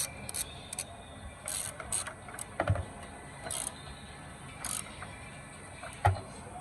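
Hand ratchet wrench clicking in short runs as the engine mount bolts are tightened by hand, with two sharp metallic knocks about a third of the way in and near the end.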